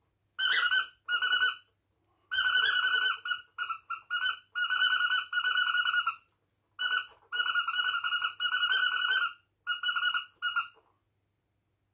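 High-pitched squeaky gibberish voicing a squirrel hand puppet: runs of short chattering squeaks at one steady pitch, broken into syllable-like groups as if talking back. The squeaks stop about a second before the end.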